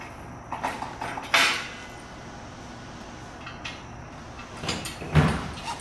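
Steel frame parts of a Wittek Eagle Lite golf ball picker clanking and knocking together as a post is fitted to the drawbar and its retaining pin put in. There are a few separate knocks, a sharp one about a second and a half in, and a heavier thump about five seconds in.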